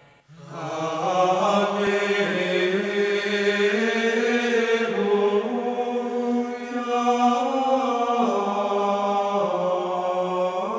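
Slow, chant-like vocal music with long held notes, coming in a moment after a brief pause.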